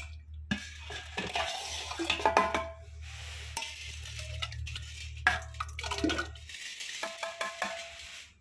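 Steel pot and bowl clinking and scraping in a run of short knocks, with brief metallic ringing, as curd is scooped by hand and poured into a clay churning pot.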